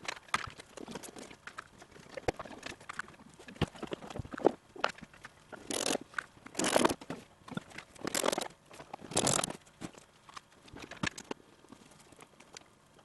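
Irregular clicks and knocks of blower parts and hand tools being handled during reassembly, with four short rasping bursts about halfway through.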